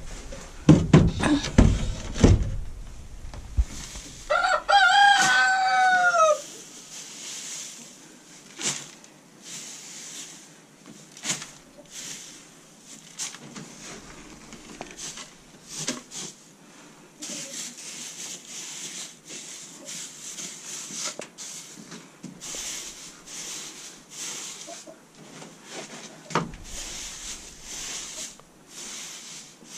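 A few heavy thumps in the first couple of seconds, then a rooster crows once, about two seconds long with a falling end. After that comes a soft, uneven rustling of dry wood shavings being scooped and scattered by hand.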